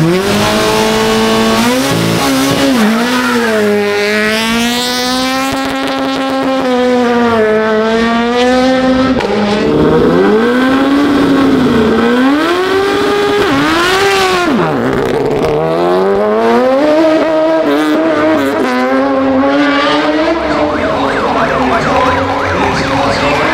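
Racing car engines revving hard at a hillclimb start line, the pitch climbing, holding and dropping again and again as the cars are held on launch control and pull away.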